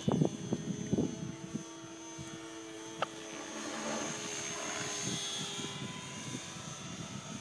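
Radio-controlled model aircraft flying overhead: its motor gives a steady tone, and a rushing sound swells and fades in the middle as the plane passes. A couple of loud low thumps on the microphone near the start, and a single click about 3 seconds in.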